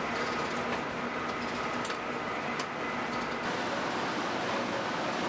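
Olive-processing machinery running steadily with a hum, harvested olives carried along a conveyor with scattered clicks and rattles. After about three and a half seconds the clicks stop and an even rushing machine noise continues.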